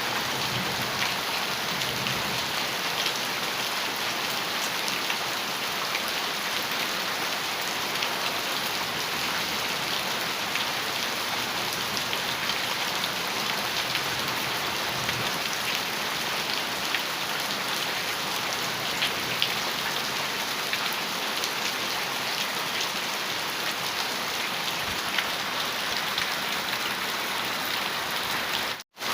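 Heavy rain on a metal roof: a steady hiss dotted with many small drop ticks. It cuts out for an instant near the end.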